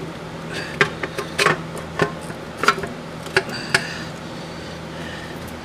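Saturn transmission valve body cover being wiggled loose after its bolts are out: a string of irregular sharp knocks and clicks against the case and nearby parts, some with a brief ringing, over the first four seconds. A steady low hum runs underneath.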